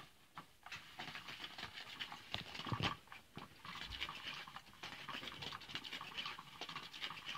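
Cat's Meow motorized cat toy, its hidden wand dragging around under the nylon cover: a soft, scratchy rustling with many small ticks that starts about a second in and keeps going.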